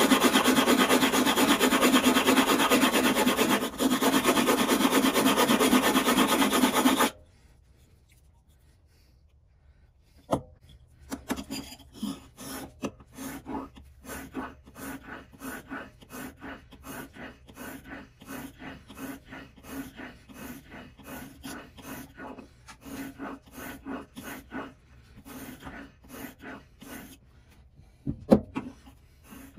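A sharpening stone rubbed hard back and forth on a diamond plate, a loud steady grinding rasp that cuts off abruptly about seven seconds in. After a few quiet seconds, a plane iron in a honing guide is pushed back and forth on a whetstone in quieter regular strokes, about two a second, with a sharp knock near the end.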